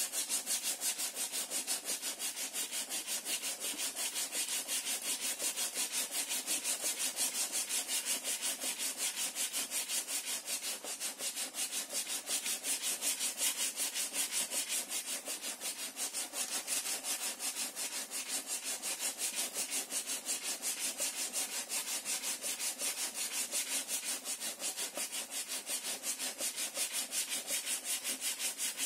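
Coarse P60 sandpaper rubbing by hand over the wooden planking of a model ship's hull, in rapid, even back-and-forth strokes: a steady scratchy hiss.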